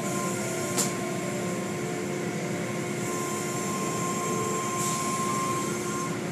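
Automatic car wash running, heard from inside the car: a steady hiss of water spray and cloth strips washing over the body, with a faint machine hum and a single knock just under a second in.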